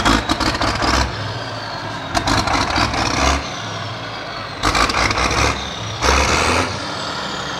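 International 1455XL tractor's turbo diesel engine running and being revved in four short bursts, with a high turbo whistle winding down between them.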